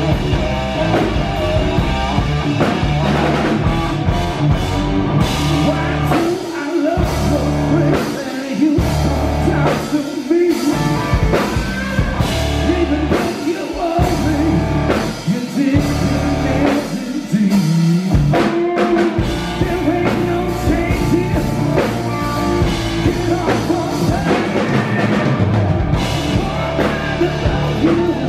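Rock band playing live: electric guitar, electric bass and drum kit, with a man singing.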